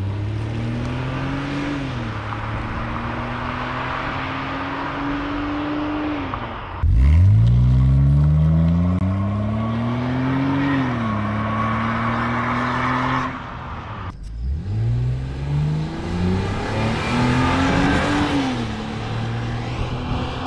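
BMW E46 330Ci's inline-six accelerating hard away through the gears, its pitch climbing and then dropping back at each upshift. There are three separate pulls: the stock exhaust, then the Magnaflow cat-back exhaust from about 7 seconds in, then the stock exhaust again from about 14 seconds in.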